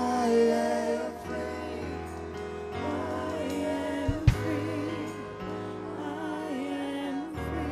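Live gospel worship music: a band holding slow, sustained chords while a singer's voice glides over them, with one sharp hit about four seconds in.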